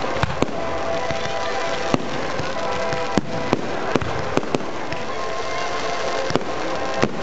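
Aerial firework shells bursting in a display, about ten sharp bangs at irregular intervals, over music played for the show.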